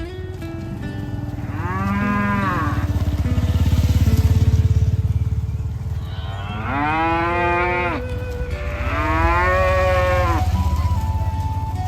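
Cattle mooing three times, each moo rising and then falling in pitch; the second and third come close together. A steady low rumble runs underneath.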